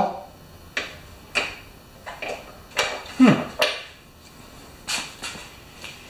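Scattered sharp clicks and taps of small hand tools on the metal of a small-engine carburettor, about seven in all, with a short falling grunt about three seconds in.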